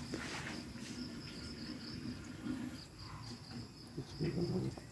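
Insects chirping steadily at a high pitch, with a brief low sound near the end.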